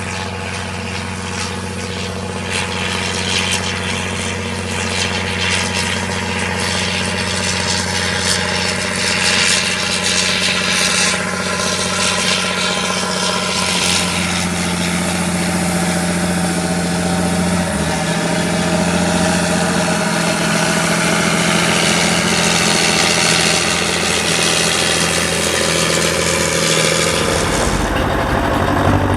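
Diesel engine of harvest machinery running steadily, with a constant rushing noise over its low drone. The engine note shifts slightly about halfway through.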